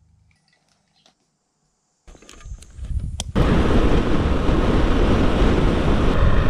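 Near silence with a few faint handling ticks. About two seconds in, riding noise cuts in and builds for about a second, then holds loud and steady: wind rushing over the microphone together with the Yamaha Serow 250's single-cylinder engine running at road speed.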